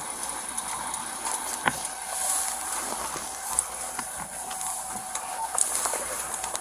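Clothing rustling against a body-worn camera's microphone during a pat-down search, with a few sharp clicks over a steady hiss.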